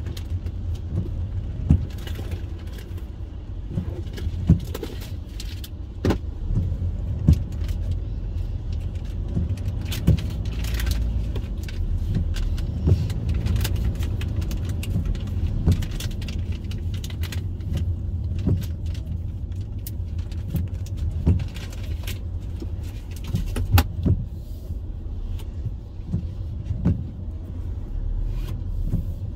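Car cabin on a wet road in slow traffic: a steady low rumble of engine and tyres on wet pavement, with irregular sharp taps of rain striking the windshield and roof throughout.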